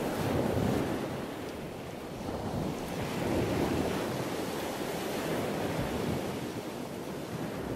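A steady rushing noise, like surf or wind, that swells gently about half a second and again about three and a half seconds in.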